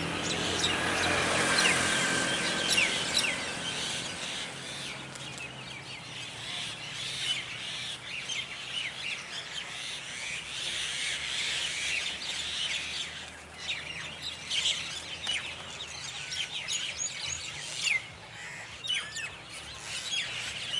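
A flock of birds chirping and calling, many short overlapping calls throughout. In the first few seconds a passing motor vehicle's engine fades away underneath.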